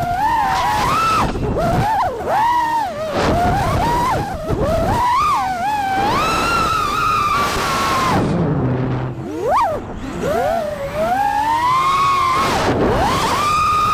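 FPV freestyle quadcopter's brushless motors and propellers whining, the pitch sweeping up and down continually as the throttle changes, with a quick sharp rise and fall a little past halfway.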